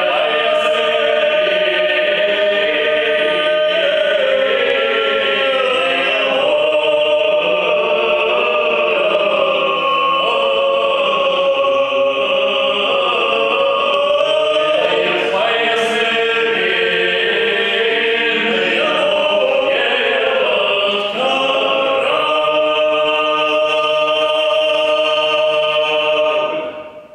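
Three male voices singing a cappella in close harmony, a Greben Cossack epic song (bylina), in a brick tower hall. About five seconds before the end they settle on a long held final chord that then stops.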